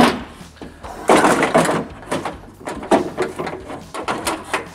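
Power window regulator and motor assembly scraping and clanking against the inner door sheet metal as it is worked out through the access opening, in several short rattling bursts.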